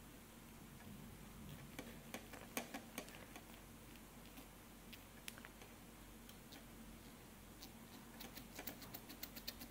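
Quiet clicking of a rotary encoder module's detents as its shaft is turned by hand. A few scattered clicks come in the first few seconds, then a quick run of clicks near the end.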